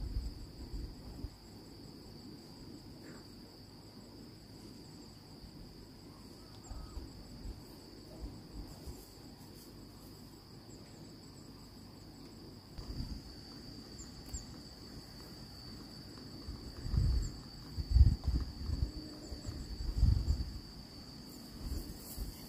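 Insects, crickets or similar, chirring in one steady, high, unbroken trill. Several dull low thumps come in the last few seconds and are louder than the insects.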